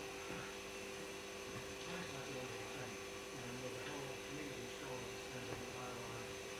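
Steady electrical hum, made of a few fixed tones, with a faint low murmur beneath it; no blackbird calls are heard.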